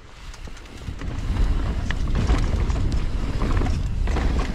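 Mountain bike riding down a rough dirt trail: wind buffeting the microphone as a low rumble, with many quick rattling clicks from the bike over the ground. It grows louder over the first second or so as speed picks up.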